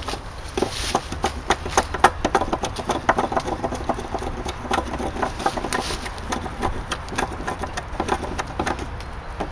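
Small hatchet chopping at a wooden pole, a quick run of short sharp blade strikes into the wood, several a second.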